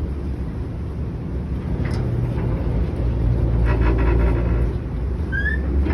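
Ferry engine running with a steady low hum and rumble, heard on board, with a short knock about two seconds in and a brief rattle around the middle.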